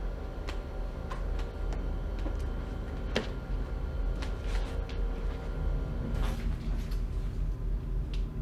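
A low steady hum with scattered sharp clicks and creaks, the loudest about three seconds in, and a brief rush of noise a little after six seconds.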